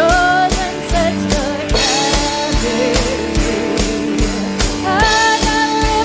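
Live worship band: a woman sings held, wavering notes over electric guitar, keyboard and a steady drum beat.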